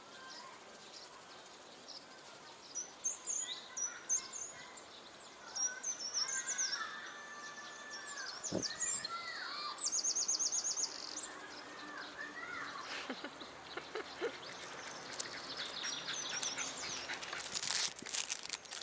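Wild birds singing and calling: many short chirps and gliding whistles, with a rapid trill about ten seconds in. A flurry of sharp clicks and rustling comes in near the end.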